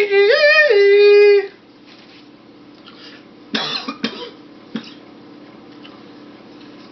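A person's high, wavering vocal cry, loud and held for about a second and a half before it breaks off. A few seconds later come a few short, harsh, breathy bursts.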